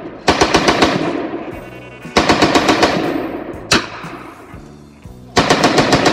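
Automatic firearm firing three short full-auto bursts of about seven rounds each at roughly ten rounds a second, with one single shot between the second and third burst; each burst trails off in an echo.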